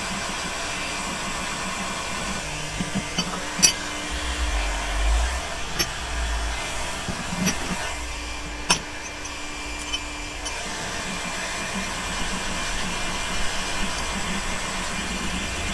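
Electric heat gun blowing steadily, heating the gearbox's aluminium case so the input shaft can be refitted, with a few sharp metallic clicks and knocks from the work on the case.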